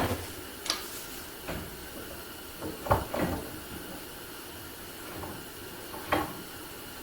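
Hand plane working a wooden board: a handful of short scraping strokes and knocks, spaced irregularly, with a close pair about three seconds in.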